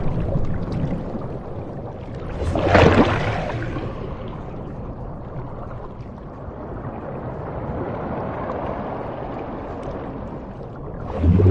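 Underwater sound of the deep sea: a continuous rushing, gurgling wash of moving water, with a louder surge about three seconds in and another near the end.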